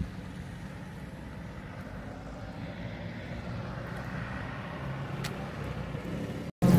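Steady low hum of vehicle engines and traffic, with a faint click about five seconds in. Near the end it drops out for an instant and gives way to louder, busier sound.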